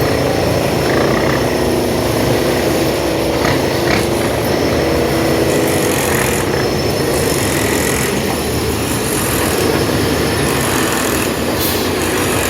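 Heavy diesel earth-moving machinery running steadily under load: a deep engine rumble with several held metallic tones over it and a couple of brief knocks a few seconds in.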